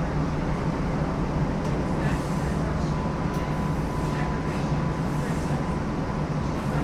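New Orleans Canal Street streetcar running, a steady low hum and rumble of the car, with a faint steady whine for a couple of seconds in the middle.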